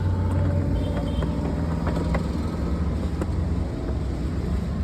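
A vehicle engine running steadily with a low rumble, with a few light clicks over it.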